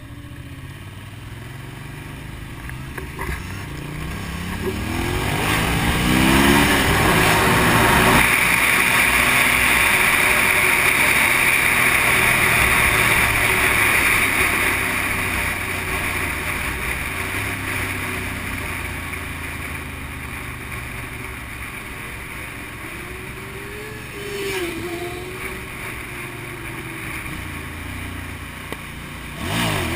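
Motorcycle heard from on board, its engine rising in pitch as it accelerates. Then a loud steady rush of wind at speed, which slowly fades as the bike eases off. A brief rise and fall in engine pitch comes past the middle, and a fresh rev right at the end.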